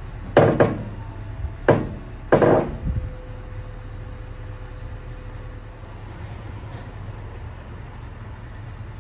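Heavy knocks: a quick double knock, then two more about a second apart, over a steady low rumble.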